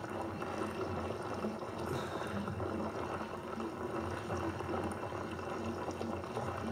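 Steady background noise, an even hiss and low hum with no distinct events.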